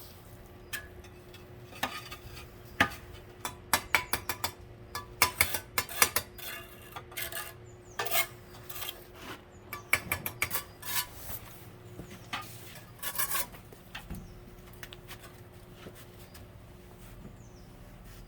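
Steel trowel work on bricks and mortar: a quick run of metallic scrapes, taps and clinks from about two seconds in until about thirteen seconds, then only a faint steady hum.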